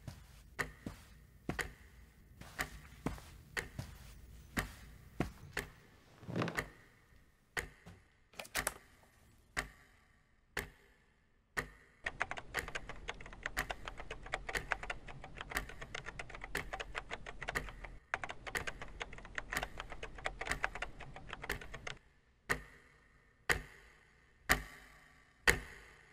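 Typing on a laptop keyboard, a dense, fast run of key clicks through the middle, with separate sharp clicks about once a second before and after.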